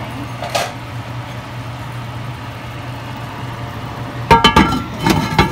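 Pot lid being set onto a heavy enamelled pot: a quick cluster of clanks with a metallic ring about four seconds in, then a few more near the end. Under it runs a steady low hum.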